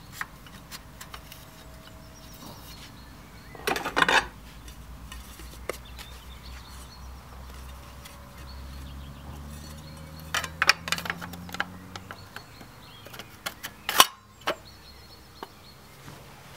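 Light metallic clinks and knocks, with a louder clatter about four seconds in and a sharp knock near the end. A faint low hum slowly rises in pitch through the middle.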